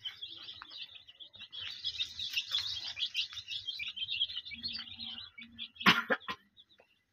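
A brood of desi chicks peeping, many high, short peeps overlapping, busiest from about one and a half to five seconds in. A sharp knock just before six seconds is the loudest sound, and the peeping falls away after it.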